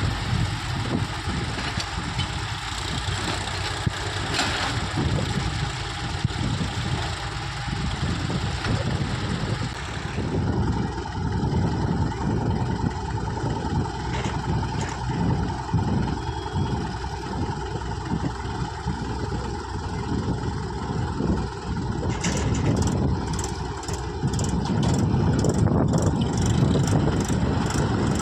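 Diesel engine of heavy farm or construction machinery running steadily. Near the end it grows louder, with a rapid run of clicks or rattles over it.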